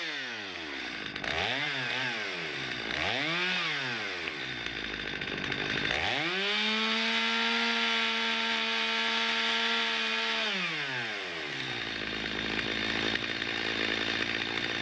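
Stihl two-stroke chainsaw revved in three quick blips, then held at high revs for about four seconds before dropping back to idle.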